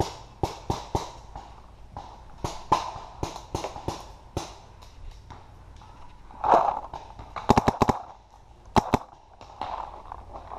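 Paintball markers firing in sharp, scattered shots, with a quick burst of about five shots about three quarters of the way through and two more just after.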